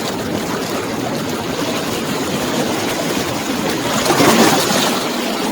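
Niagara River rapids rushing in a steady wash of water noise, swelling briefly about four seconds in.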